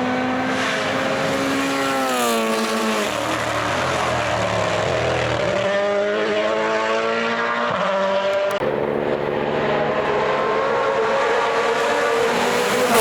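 Rally car engine on a WRC special stage running hard: its pitch drops about two seconds in as the car slows, then climbs again as it accelerates, with an abrupt change of note past the middle.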